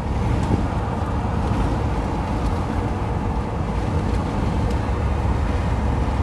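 Steady engine and road noise inside the cab of a moving RV, heaviest in the low end.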